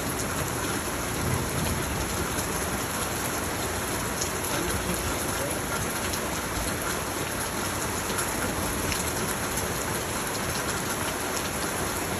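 Heavy rain pouring steadily during a thunderstorm, pattering on the patio and roofs.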